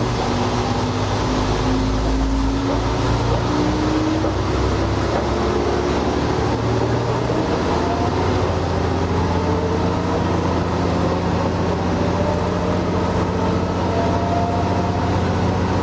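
Diesel railcar running from the cab, pulling away from near standstill: the engine note rises slowly as the train gathers speed, over a steady low hum. The low hum shifts about seven and a half seconds in.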